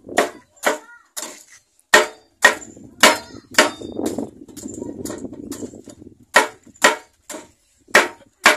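A long knife chopping through prickly pear cactus pads on a wooden board, slicing them into strips: a steady run of sharp chops, about two a second with brief pauses, a little softer in the middle.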